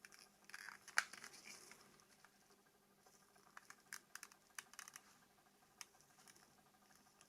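Faint small plastic clicks from a Nokia 2760 flip phone being handled: one sharp click about a second in, then a run of short button clicks from its keypad.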